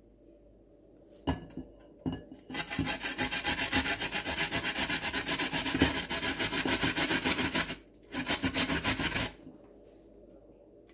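Raw potato rubbed fast up and down against the fine holes of a metal box grater, giving quick, even rasping strokes. A couple of knocks come first. The grating starts a few seconds in and breaks off briefly near the eight-second mark, then stops a little over a second later.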